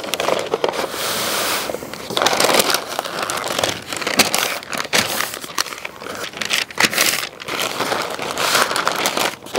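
Pink butcher paper crinkling and rustling as gloved hands roll and fold it tightly around a piece of smoked meat, a dense run of irregular rustles and sharp crackles.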